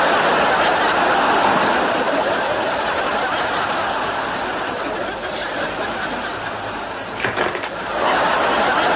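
Studio audience laughing. The laughter eases off midway, then swells again near the end, just after a brief sharp sound about seven seconds in.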